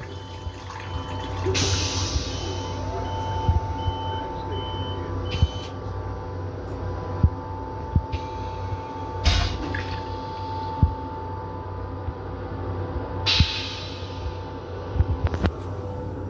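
Steady hum and drone of an M7 electric railcar, heard from inside its small restroom. A few sharp knocks and several short hissing bursts come over it, and a string of faint high beeps runs through the first five seconds.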